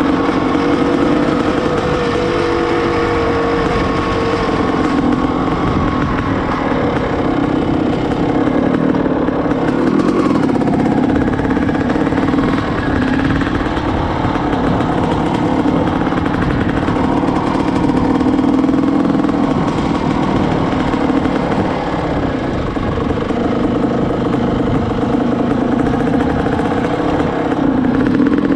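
Honda CR500R's two-stroke single-cylinder engine running while the bike is ridden on the street, its pitch shifting a little with the throttle.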